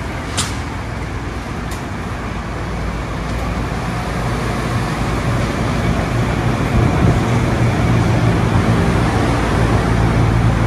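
Steady low hum and rushing fan noise of the refrigeration in a walk-in dairy cooler, growing louder a few seconds in and then holding steady. A single sharp click about half a second in.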